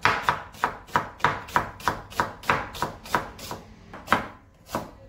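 Kitchen knife slicing an onion into thin strips on a wooden cutting board: steady chops about three a second, each a sharp knock of the blade on the board. The chops thin out after about three and a half seconds and stop just before the end.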